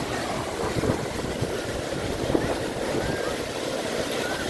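Wind buffeting the microphone over the wash of sea surf: a steady, gusting rumble.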